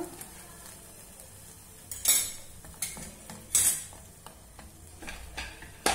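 Metal utensils clinking and knocking against a cooking pot, several separate knocks with the two loudest about two and three and a half seconds in.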